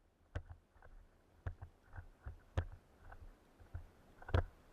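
Camera handling noise: irregular muffled knocks and rubbing, roughly one knock a second, from an action camera in its waterproof housing being carried.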